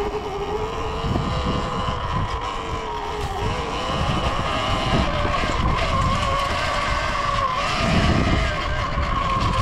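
Surron Ultra Bee electric dirt bike's motor whining while riding, its pitch rising and falling with throttle and speed, over a low rumble of wind and trail.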